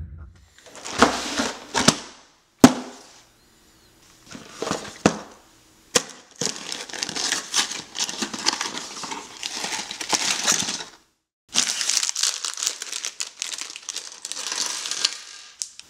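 Cardboard Lego box being torn open along its perforated flap, then a clear plastic bag of Lego pieces crinkling and rustling as it is handled, with loose bricks shifting inside. A single sharp snap about three seconds in is the loudest sound.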